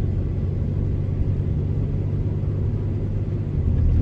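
Steady low engine and road rumble of a truck heard from inside the cab while driving.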